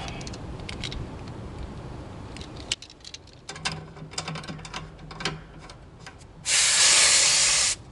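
Small clicks and taps of metal fittings being handled at an air-conditioner condenser's service valves, then, near the end, a loud hiss of refrigerant spurting for about a second and a half as a gauge hose is fitted to a service port. The hiss cuts off suddenly.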